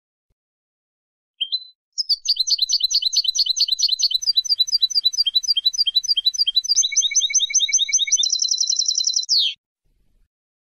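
European goldfinch singing: a short note, then a fast run of twittering notes lasting about seven seconds. It ends in a quicker trill and a falling note.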